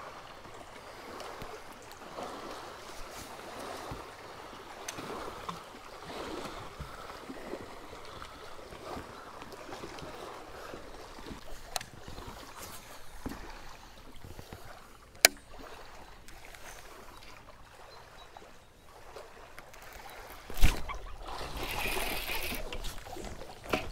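Small waves lapping against a fishing boat's hull with light outdoor air noise. A sharp click comes about fifteen seconds in, and a thump near the end is followed by a short hiss.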